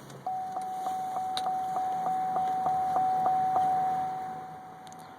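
Chevy Silverado's electronic warning chime: a steady mid-high tone pulsing about three times a second. The pulsing stops a little past halfway and the tone dies away.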